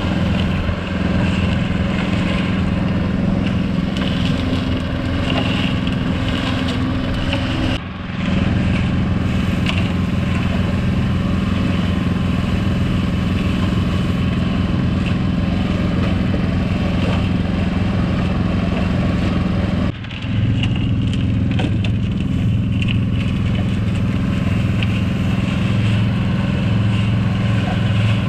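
Cement mixer running steadily while concrete is mixed: a continuous motor hum. It breaks off briefly twice, about eight and twenty seconds in.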